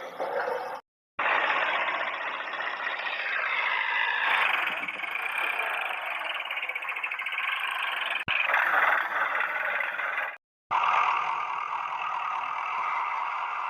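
Toy construction vehicles running with a steady, thin engine-like noise that has no deep low end, cut off twice by brief drops to silence.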